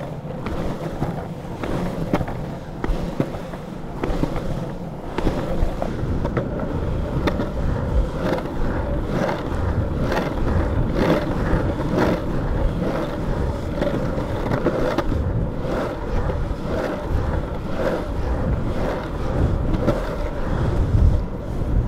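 Longboard wheels rolling on a paved path: a steady rumble with frequent irregular clicks and knocks, while the rider kick-pushes along.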